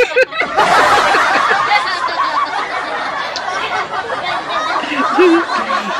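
A group of girls laughing together, several high-pitched voices overlapping in giggles.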